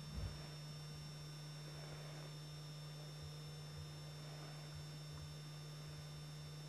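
Steady low electrical hum with faint hiss and two thin, steady high whines above it, with a brief soft low thump just after the start; no sound from the animal is heard.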